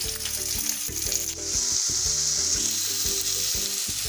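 Sliced onions and green chilli sizzling in hot mustard oil in a kadhai. About a second and a half in, the sizzle grows louder and brighter as the pan of onions, beans and tomatoes is stirred. Background music plays underneath.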